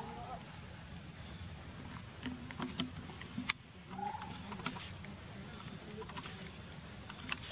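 A young macaque gives brief squealing calls, one at the start, one about four seconds in and another at the end, while it is held down for wound cleaning. A few sharp clicks of handling sound in between, over a steady high whine in the background.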